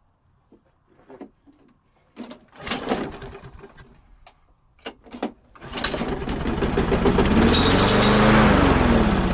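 Freshly primed gasoline push-mower engine being pull-started: a longer crank about two seconds in and a short one near the middle, then it catches about halfway through and runs loudly and steadily.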